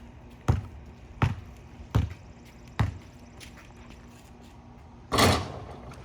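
A basketball being dribbled, four bounces about three-quarters of a second apart, then a pause and a louder, longer noisy sound about five seconds in.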